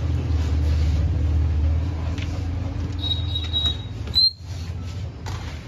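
A steady low rumble, engine-like, that stops about three and a half seconds in; just after, a short high squeak and then a sharp knock.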